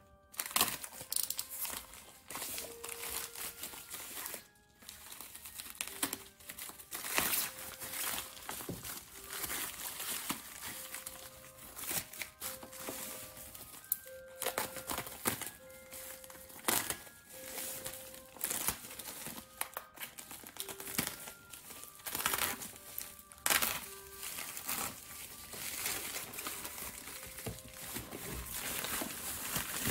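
Thin plastic wrap and bubble-wrap packaging crinkling and rustling in irregular bursts as it is handled, cut and torn open, over a light background melody of short, separate notes.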